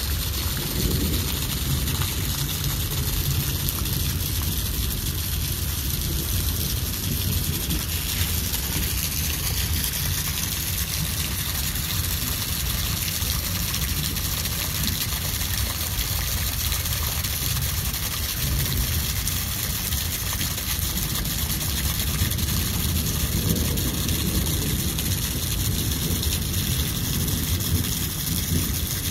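Steady rain falling on shallow floodwater: a continuous even hiss with a low rumble underneath.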